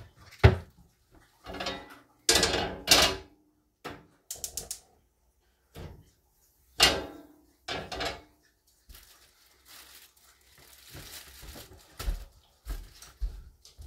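Dishes and pans being handled: a string of separate clanks and knocks, some ringing briefly, then softer rustling and a few low thumps near the end.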